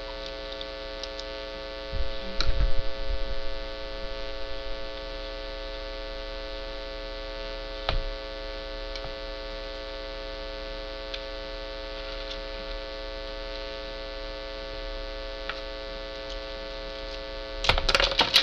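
A steady electrical mains hum runs throughout. Over it come brief knocks and rustles of handling about two seconds in, a single click near the middle, and a crackly burst of handling near the end.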